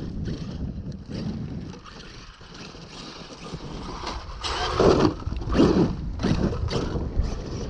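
Arrma Kraton 8S RC truck driving over rough dirt, its brushless motor and drivetrain under throttle, with several louder bursts of throttle and tyre noise in the second half.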